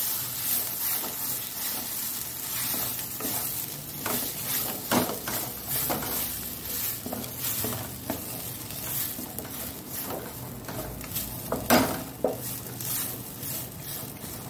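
Wooden spatula stirring and scraping a thick spiny gourd paste around a hot non-stick kadai, in uneven strokes over a light sizzle of frying. One louder knock of the spatula near the end.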